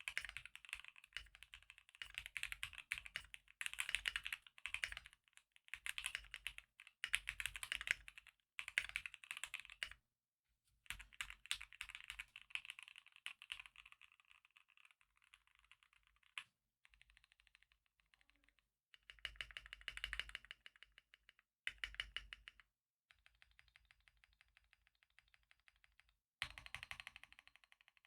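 Keychron Q4 mechanical keyboard being typed on: quick runs of key clicks in bursts of a second or two, separated by short pauses, with a few quieter stretches of slower, evenly spaced keystrokes.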